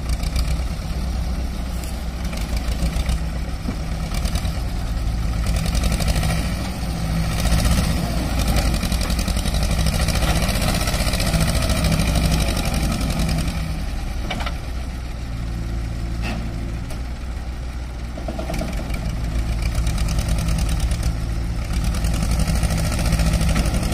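Diesel engine of a JCB 3DX backhoe loader running under load as it scoops and lifts soil into a tractor trolley. The engine runs steadily, with its revs swelling louder and easing off several times.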